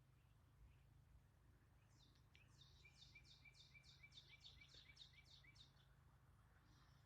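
Faint bird song: a trill of about a dozen quick downward-sweeping chirps, roughly three a second, starting about two seconds in and ending just before six seconds, over a low steady hum of background noise.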